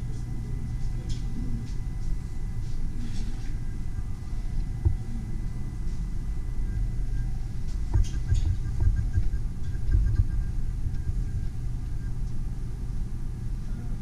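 Low rumbling handling noise from a handheld camera on a gimbal grip as it is carried around a room, with a few dull thumps and a faint steady high tone.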